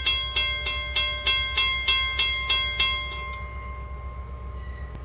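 Railroad crossing bell ringing at about three strokes a second while the crossing gate arm lowers. The bell stops about three seconds in as the gate settles down, leaving a steady low rumble.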